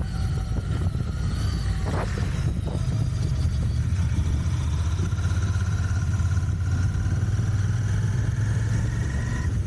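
Royal Enfield Continental GT 650's 648 cc parallel-twin engine running under way through its stock exhaust, a steady low note whose pitch climbs gently over the second half.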